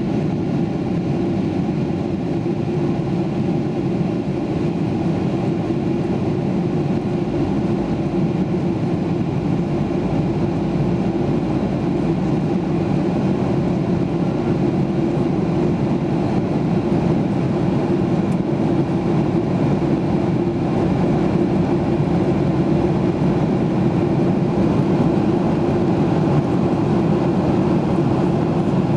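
Steady in-flight cabin noise of a Boeing 737: the constant drone of engines and airflow, with a low hum running through it. It grows slightly louder over the second half.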